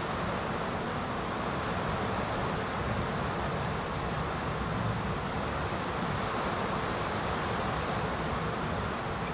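Steady background hiss and rumble, even throughout, with a few faint high ticks.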